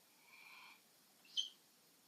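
A person acting out crying: a faint breathy whimper, then a short sharp sniff about a second and a half in.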